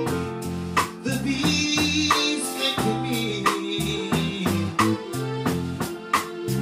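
Live band playing a reggae groove: electric bass guitar lines over a drum kit beat and keyboard, with a singer's vocals on top.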